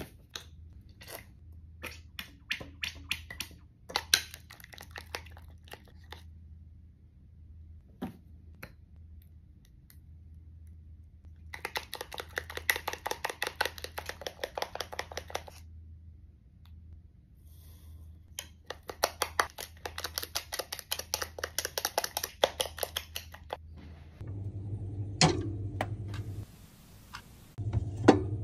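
A spoon stirring thick green slime mixture in a ceramic bowl: two long spells of quick, wet scraping strokes, after scattered clicks and taps from handling the bottle and bowl. Near the end comes a low refrigerator hum.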